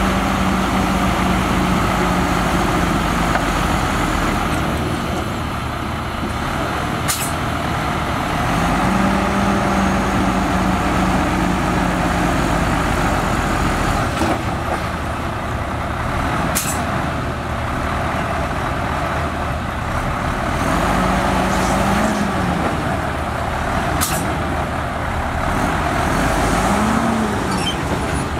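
Heavy diesel earthmoving machinery, a bulldozer and dump trucks, running steadily, the engine pitch rising and falling several times as it works under load. A few short, sharp clanks stand out over the running noise.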